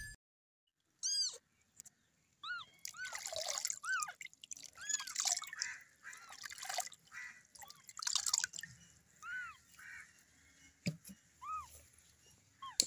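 Newborn kitten giving repeated short, high mews that rise and fall, about a dozen in all, while it is washed in a basin of water, with splashing and dripping water in between.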